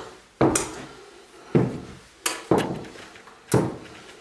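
Boot heels knocking on a hardwood floor as a person walks: several separate sharp footsteps at an uneven pace, each ringing briefly in a small hallway, two of them close together in the middle.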